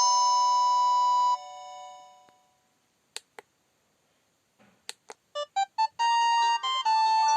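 Polyphonic synth ringtones from an LG VI125 mobile phone: one tone ends on a long held note that fades out, then after a short silence with a few brief clicks, the next preloaded ringtone starts with short staccato notes about five seconds in.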